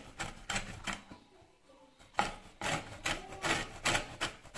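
A whole lemon rubbed back and forth across a flat stainless-steel grater to zest it: a run of short rasping strokes, with a pause of about a second after the first few.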